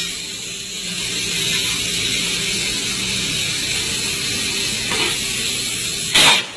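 Compressed air hissing steadily as a lorry tyre is inflated from an air hose, then a short, loud burst of air near the end as air blasts out around the rim and kicks up dust.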